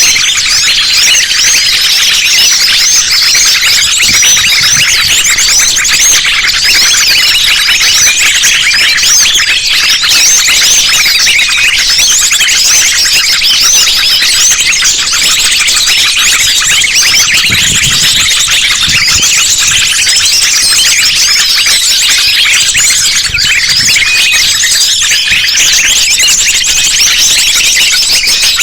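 A dense, unbroken chorus of many small birds calling at once: mixed lure recordings of sunbirds and other small songbirds, overlapping rapid high-pitched chirps and trills with no pause.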